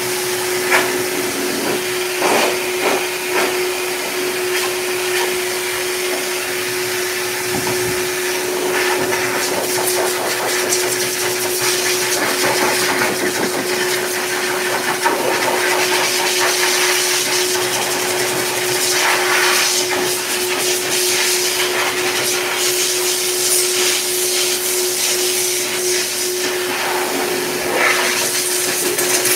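K9 heavy-duty dog dryer blowing air through its hose into a Bernese mountain dog's thick coat: a loud, steady rush of air over a steady hum, swelling and easing a little as the nozzle is moved over the fur.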